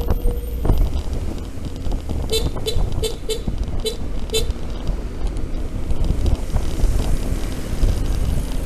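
Road and wind rumble from riding an electric scooter in traffic, with a quick run of about six short horn toots a couple of seconds in.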